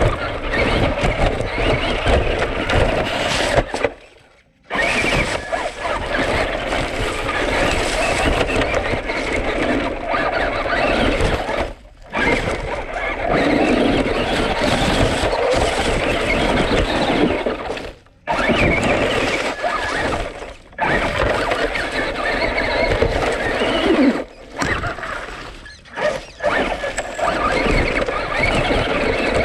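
Traxxas Rustler 4x4 RC truck driving fast over dry leaves and sticks, heard from a camera mounted on the truck: a loud, rattly mix of electric motor, drivetrain and tyres crunching the forest floor. It cuts out briefly several times.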